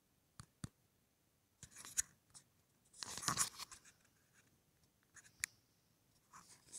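Faint handling noise: a few scattered light clicks, with a short scraping rustle about three seconds in.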